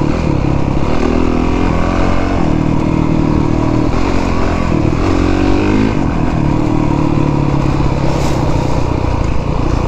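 Honda CRF450R's single-cylinder four-stroke 450 engine running hard under way on a gravel trail, its revs rising and dropping as the throttle is worked.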